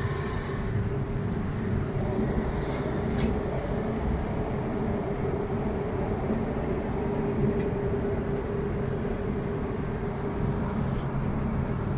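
Steady low mechanical rumble with a constant hum, and a few faint clicks.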